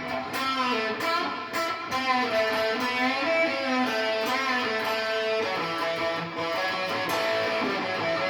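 Guitar playing a blues-rock solo line of single notes, several of them bent up and down in pitch, ending on held notes.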